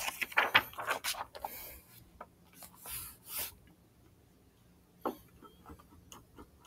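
Brief rustling and scraping noises close to the microphone, then a few sharp clicks starting about five seconds in.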